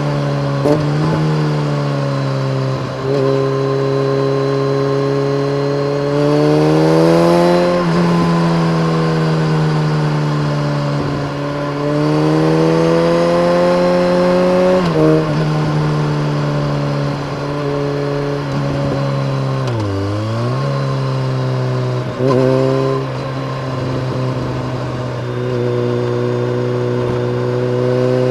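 BMW K1300R's inline-four engine through a full Akrapovic race exhaust with a dB killer, pulling under load. The pitch climbs steadily in gear, drops sharply at gear changes about 8 and 15 seconds in, dips and comes back around 20 seconds, then holds fairly steady.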